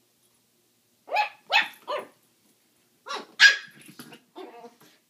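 Small dogs barking in short sharp barks during a squabble between a Yorkshire terrier puppy and a schnauzer: three quick barks about a second in, then two more about three seconds in, the second the loudest, followed by softer, lower growling.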